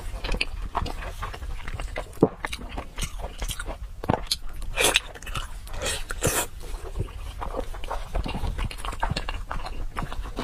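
Close-miked wet chewing and biting of braised pork knuckle skin and fat, with irregular smacking clicks and a few longer, louder sounds near the middle.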